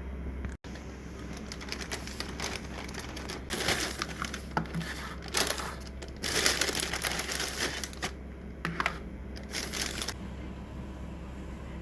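Plastic or paper packaging crinkling and rustling as it is handled, in irregular bursts from about three and a half seconds in until about ten seconds.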